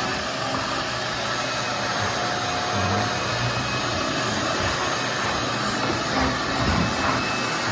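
Vacuum running steadily, a continuous even rushing noise, during concrete dust cleanup on a basement floor.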